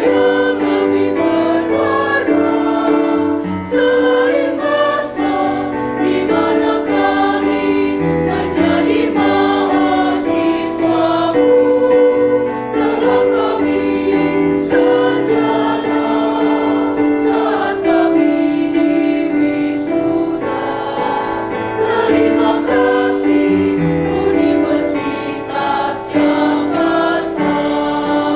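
Mixed choir singing a university march in unison and harmony, with a steady accompaniment underneath.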